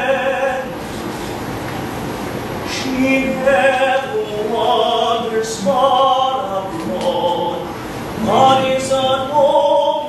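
A male classical singer sings a 17th-century English lute song with guitar accompaniment. The voice pauses about a second in and comes back after about two seconds.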